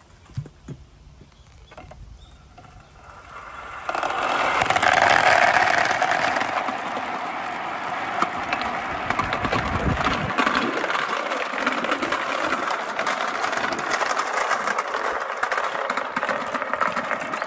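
Many glass marbles and small plastic balls rolling and clattering: about four seconds in, a dense rush of rolling starts, thick with small clicks, as they circle a large plastic Kloun funnel and drop down a wooden marble track.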